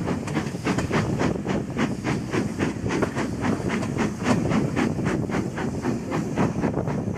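Steam locomotive exhaust chuffing in quick, regular beats, about five a second, from LMS Black Five 44871, a two-cylinder 4-6-0, working its train, heard from an open carriage window over steady rail and wind noise.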